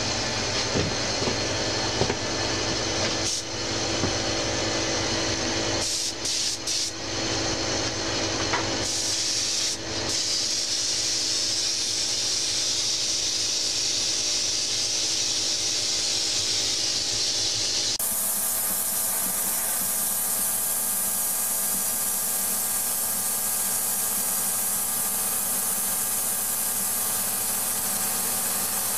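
Air-fed mini touch-up spray gun hissing as it sprays white paint onto a turning steel wheel, over a steady machine hum. The hiss comes in about a third of the way through and changes abruptly about two-thirds in.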